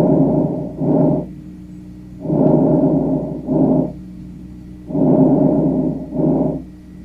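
Recorded lung breath sounds: three breathing cycles about every two and a half seconds, each a longer airy sound followed after a brief break by a shorter one.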